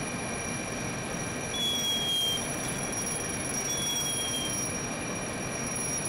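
Steady motor noise of fire apparatus on the fireground: a constant rumble with thin high whines over it, and a short, slightly falling high beep about every two seconds.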